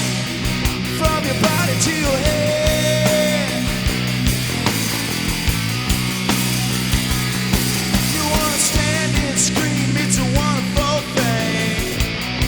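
Punk-style rock music with a steady drum beat, bass and a singing voice.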